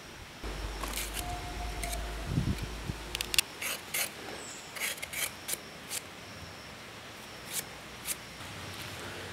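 Kitchen knife paring and slicing the skin off a Kerala cucumber: a series of short, sharp scrapes and cuts at an uneven pace. A low rumble runs under the first three seconds.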